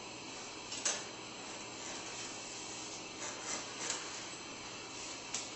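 Kerosene heater's shutoff mechanism being worked: a sharp click about a second in, then soft rubbing and knocking, and another click near the end, over a steady faint hiss.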